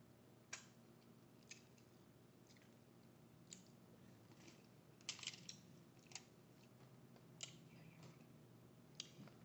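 Close-miked eating sounds: scattered mouth clicks and small crunches, about eight in all, with a quick cluster about five seconds in.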